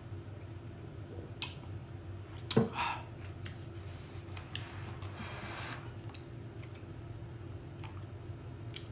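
Eating at a table: scattered light clicks of utensils against food containers, one louder knock about two and a half seconds in and a brief rustle around five seconds in, over a steady low hum.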